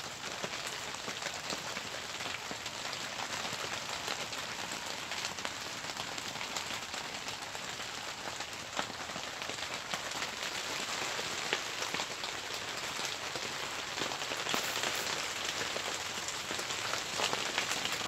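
Heavy rain falling steadily, with many separate drops striking close by.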